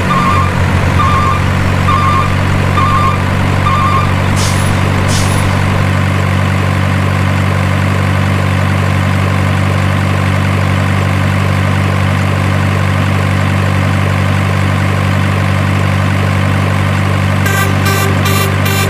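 Steady idling heavy-truck engine sound, with five short beeps like a reversing alarm in the first four seconds and two short air-brake hisses about four and five seconds in. Music comes in just before the end.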